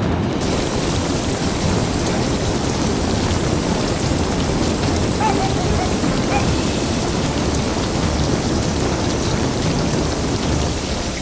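Steady, loud hiss of falling water, rain-like, with no clear breaks.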